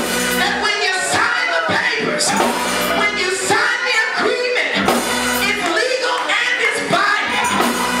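A woman singing gospel through a microphone, backed by a drum kit and organ, amplified in a church sanctuary.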